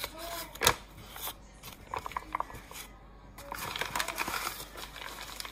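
A flour bag rustling and crinkling as flour is poured from it into a stainless steel mixing bowl, with a sharp knock a little under a second in and scattered light clicks.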